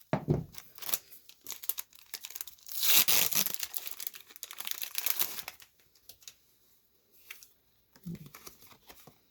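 Foil Pokémon booster pack being torn open and its wrapper crinkled, with the loudest tearing about three seconds in, then quieter rustling.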